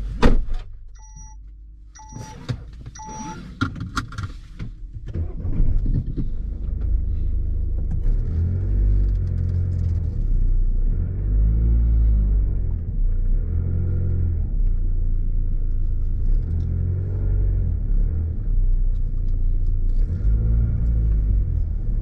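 Three short electronic chimes in the first few seconds, then a steady low rumble of road and running noise inside a car's cabin.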